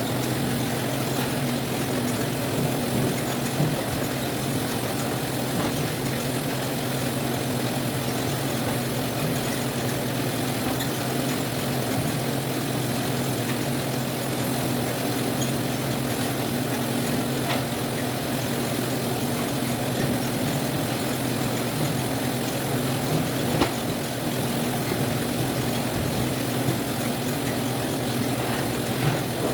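Citrus sorting machine running with a steady motor hum, with a few faint clicks.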